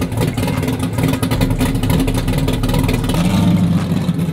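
Corvette V8 running with a choppy, lumpy exhaust note as the car pulls away, the engine swelling briefly about three seconds in.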